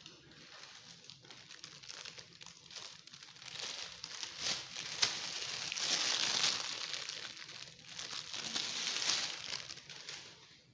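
Mylar foil balloon crinkling and crackling, a dense run of small crackles that swells to its loudest in the middle and fades out near the end.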